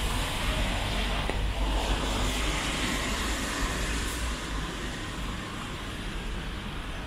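Traffic on a wet street: a car's tyres hiss on the rain-soaked road, growing louder to a peak about three seconds in and then fading, over a steady low rumble.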